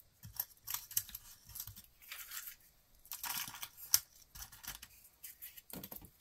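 Rustling and crinkling of small packaging, with light clicks of small electronic components being handled and sorted. One sharper click comes about four seconds in.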